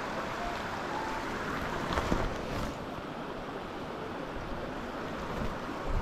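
Shallow mountain stream running over rocks: a steady rush of water, with one light knock about two seconds in.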